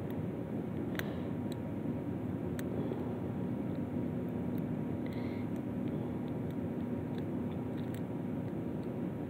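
Steady low background rumble with a faint hum, with a few faint clicks of a lock pick working the pins of a Master Lock 150 padlock.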